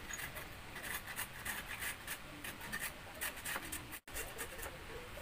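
Raw potato being grated by hand on a metal grater: repeated rasping strokes, about three a second, with a brief break about four seconds in.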